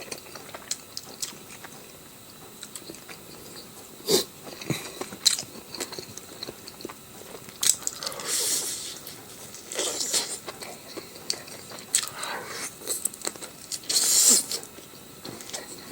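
Close-miked eating: a person chewing and biting, with scattered wet clicks and several louder crisp, crunching bites.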